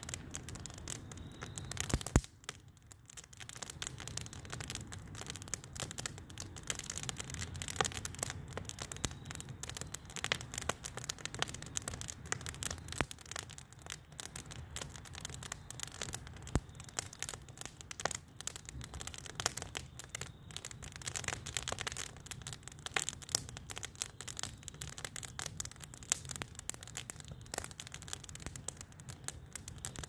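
Wood fire crackling, a dense, irregular run of sharp crackles and pops from burning logs, easing briefly about two and a half seconds in.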